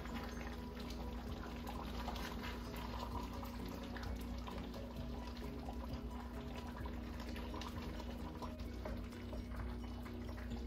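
Thick peanut sauce sloshing and bubbling in a skillet as a wooden spatula stirs it, with small scrapes against the pan, over soft background music.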